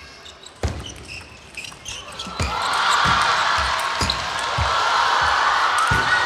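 Table tennis ball knocking sharply a handful of times at irregular intervals. From about two and a half seconds in, a crowd's noise swells and keeps building.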